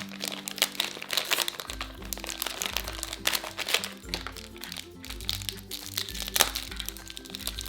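Plastic wrapper of a toy blind bag crinkling in quick, irregular crackles as it is torn open and handled, over background music.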